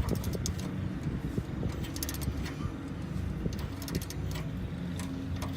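Socket ratchet clicking in short bursts about every two seconds as suspension bolts are run down, over a steady low hum.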